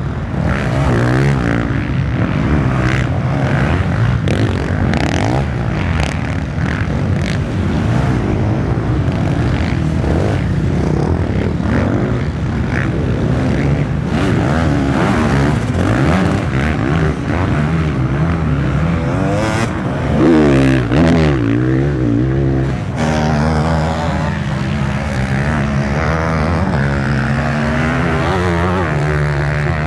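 Several dirt bike engines running and revving hard as the bikes pass, one engine rising and falling sharply in pitch about twenty seconds in.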